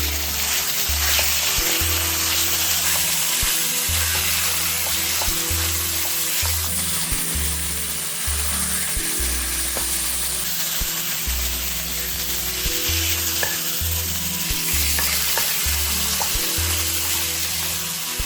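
Food sizzling steadily in a hot frying pan, with a few light clicks of stirring, over background music with a slow bass line.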